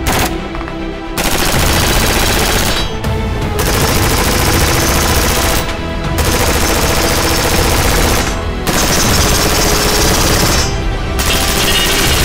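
Sustained rapid fire from a PSA Freedom AR-15 during a high-round-count burn-down test, broken by short pauses every two to three seconds. Background music plays under the shots.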